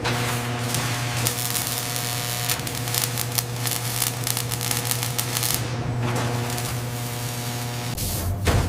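Factory machinery: a steady low hum with rapid mechanical clicking and hissing from about one to five and a half seconds in, and the sound shifts near the end.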